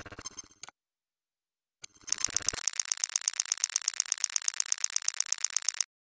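Electronic sound-design effect of rapid, even, high clicking. It stutters and cuts out just under a second in, comes back with a short low thud about two seconds in, and stops suddenly near the end.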